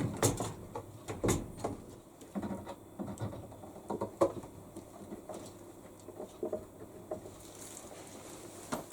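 Hand screwdriver fastening screws into a washing machine's plastic housing: irregular small clicks and scrapes with a few knocks of handling, busier in the first second or so and with a sharper click at the very end.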